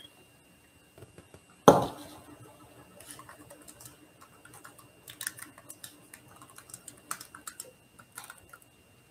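One knock about two seconds in, then faint, irregular light clicks and taps of hands handling small things at a counter.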